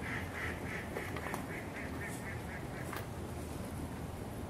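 An animal calling in a rapid series of nasal, honk-like calls, about four a second, that grow fainter and stop a little over halfway through.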